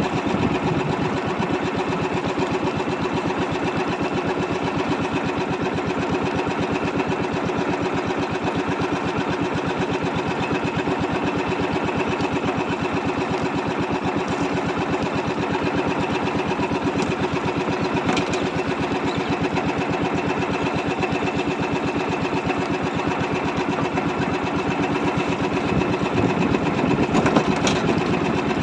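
Small boat engine running steadily at a constant speed, with a fast, even chatter; it gets slightly louder near the end.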